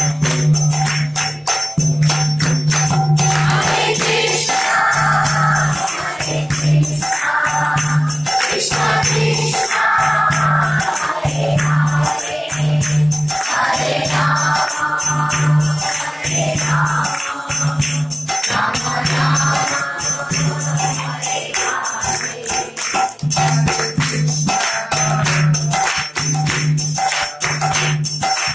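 Devotional chanting: voices singing to a mridanga drum, whose deep strokes fall about once a second, with jingling metal percussion clattering throughout.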